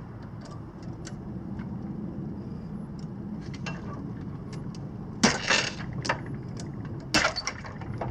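Quickloader retractable ratcheting tie-down strap being released: scattered light metallic clicks, then two short, loud rasping bursts, about five and seven seconds in.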